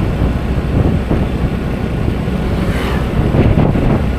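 Wind buffeting the microphone on a moving motorbike, over a steady low rumble of the bike and surrounding traffic.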